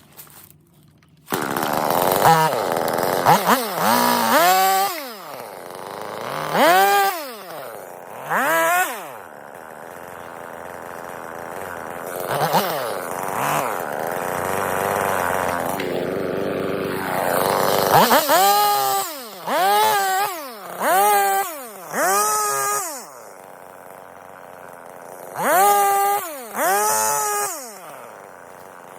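Husqvarna 450 Rancher two-stroke chainsaw starting up about a second in, then revved up and down again and again in short throttle blips, with a longer stretch of steadier running in the middle.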